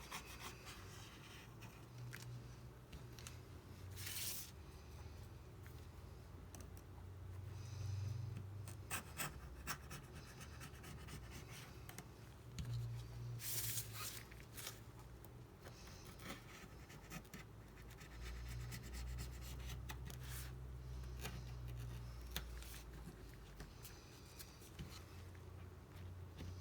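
Faint, intermittent scratching and scraping with light clicks from small hand tools working on an iPad's frame, over a faint low hum.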